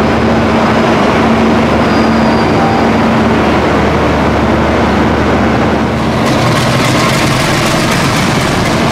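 Diesel locomotive idling beside the platform, a loud steady low hum with a steady drone above it. About six seconds in, the low hum drops away and a rough hiss takes over as the locomotive starts to move off for its run-round.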